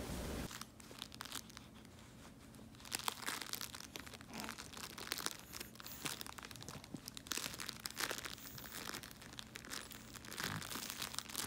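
A pug puppy chewing and mouthing a plush toy, with irregular short crackles from the toy.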